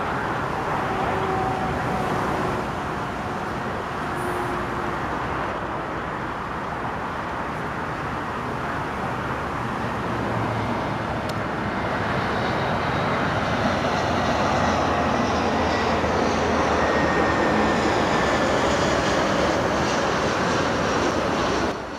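A steady roar of jet and traffic noise. From about halfway through, a high jet-engine whine grows in, falling slowly in pitch, and the sound swells as an airliner comes in low to land.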